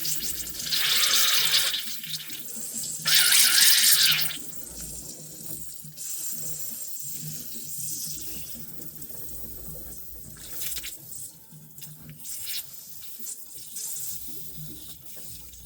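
Water rushing out of an opened hot-water supply line: two loud gushes, one about a second in and one about three seconds in, then a weaker, uneven flow.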